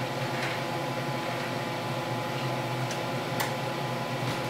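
A metal muffin tin slid onto an oven rack, with a few light metal clicks, over a steady electrical hum.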